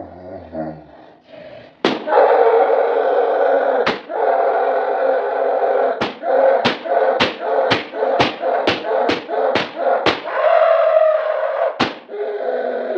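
Hard bangs, like a door being pounded or slammed: single strikes about two and four seconds in, then a quick run of about two a second, over a loud steady noisy din.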